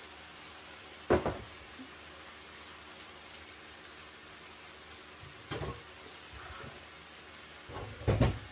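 Vegetable sauce simmering and sizzling steadily in a frying pan, with a loud knock about a second in and two more knocks, one around the middle and one near the end.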